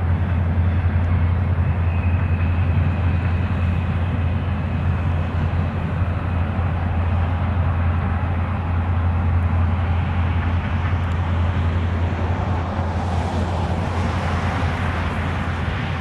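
Reading & Northern freight train's cars rolling past, a steady low rumble of wheels on the rails that eases off slightly as the last cars go by.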